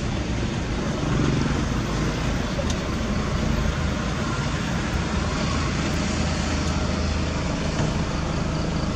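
A heavy vehicle's diesel engine running steadily: an even low hum under a constant wash of noise.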